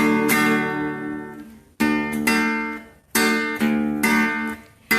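Acoustic guitar strumming chords as a song's introduction, each chord struck sharply and left to ring and fade before the next, several times.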